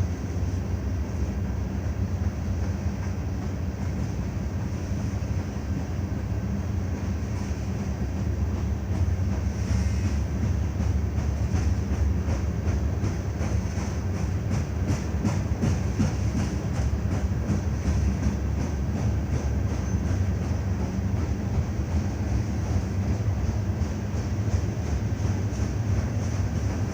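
Freight train rolling by, its hopper cars making a steady low rumble, with a run of regular wheel clicks over rail joints in the middle.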